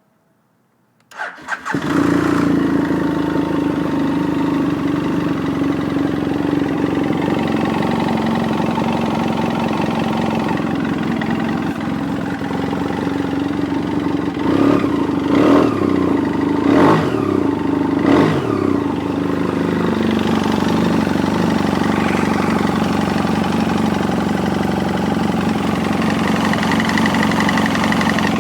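A 2007 BMW F800S's parallel-twin engine starting from cold about a second in and then idling steadily, with three quick blips of the throttle about halfway through. The owner takes the noise of the cold engine for piston slap.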